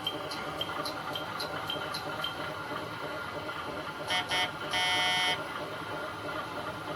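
KATO Sound Box playing its KiHa 58 diesel railcar sound card: rail-joint clatter in paired clicks for the first two seconds or so, then the railcar's horn sounds two short blasts and one longer blast about four seconds in, over a steady running hum.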